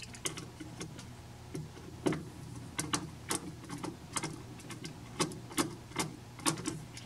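Hands working a wire loose from a plastic DIN-rail screw terminal block. About a dozen light, irregular clicks and taps.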